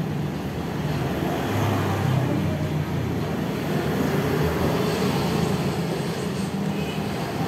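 Steady low rumble of motor vehicles running nearby, with hot water being poured from a kettle into a paper instant-noodle cup.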